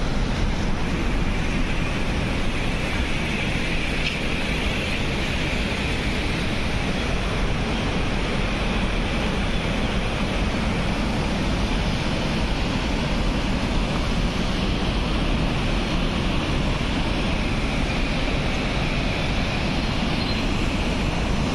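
Steady rushing of the Saraswati river's waterfall plunging through a narrow rock gorge, an even water roar throughout.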